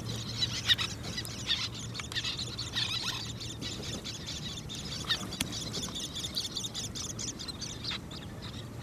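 Little terns calling in a breeding colony: many short, high calls overlapping throughout.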